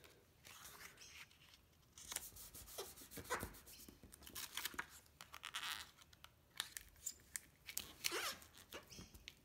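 Clear self-adhesive contact film being handled and smoothed down over a paper swatch card: faint, intermittent crinkling, peeling and rubbing of plastic film, with small taps.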